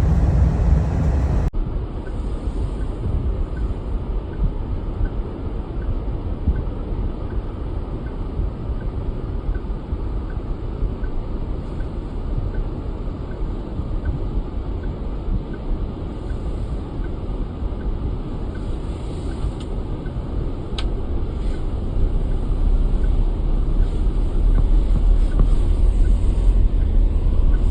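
Snowstorm wind buffeting the microphone: a dense, low rumble that rises and falls in gusts and grows louder near the end.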